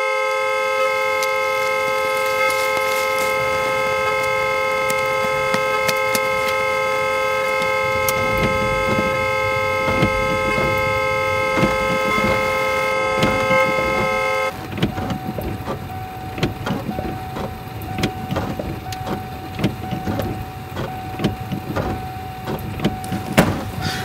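Car horn sounding one long unbroken note, held on after the car has struck a lamp post; it cuts off abruptly about halfway through. Rain keeps falling with many small ticks, under a thin steady tone.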